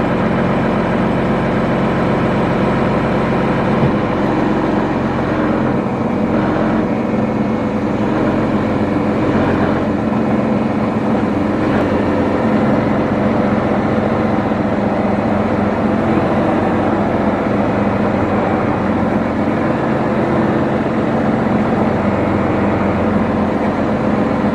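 Heavy diesel engine of farm machinery running steadily at a constant speed.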